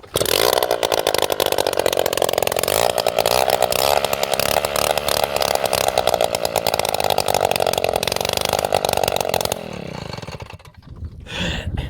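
Two-stroke moped engine running with no exhaust at all, its exhaust port open straight off the cylinder: a loud, steady note for about nine and a half seconds, then it drops back and fades.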